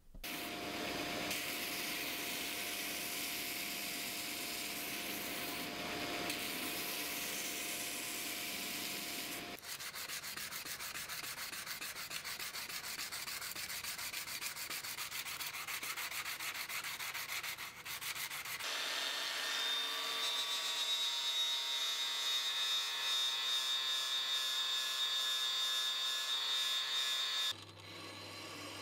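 Abrasive sanding on a wooden knife handle: a steady scraping run, then quick even back-and-forth strokes of a hand-held sanding sponge, then a steadier abrasive sound with a high whine. Near the end it gives way to the low hum of a wet sharpening grinder's motor.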